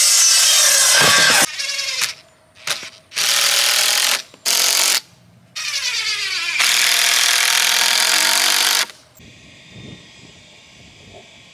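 A DeWalt sliding compound miter saw cutting lumber in several loud bursts, its motor whining down in falling pitch between cuts. About nine seconds in, the bursts stop and a much quieter steady hiss takes over.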